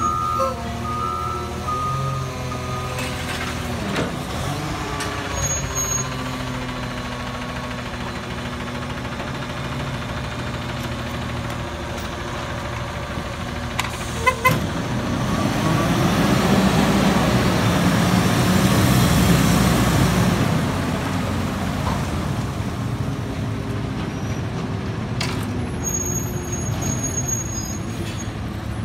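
Front-loader garbage truck's diesel engine running, with reversing beeps that stop a few seconds in. About halfway there is a short sharp air-brake release, then the engine revs louder as the truck pulls forward and drives past, settling again near the end.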